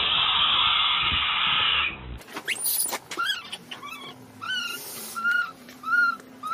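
Baby macaque crying: after a loud, harsh, noisy sound lasting about two seconds, a run of short, arched, squeaky calls, about one every half second to second.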